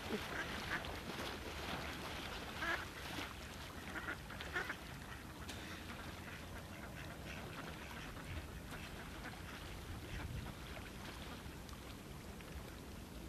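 Ducks quacking on a pond: a few short calls in the first five seconds, fainter scattered ones after.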